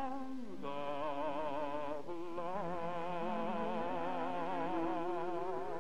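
A man singing the closing notes of a western ballad, holding long notes with wide vibrato over a steady instrumental accompaniment; a new held note begins about two seconds in.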